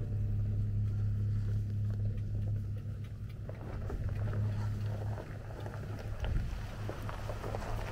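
Jeep engine running at a steady low drone. From about three and a half seconds in, faint scattered clicks and knocks come in over it.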